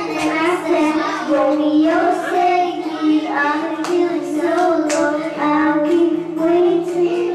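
A young girl singing into a corded microphone, her voice amplified, holding long, sliding notes.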